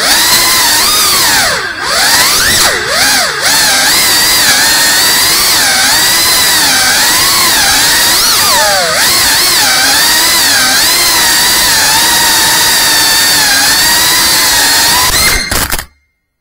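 Small FPV quadcopter's electric motors and propellers whining, the pitch wavering up and down with throttle as it flies, with a couple of brief dips early on. The sound cuts off abruptly near the end.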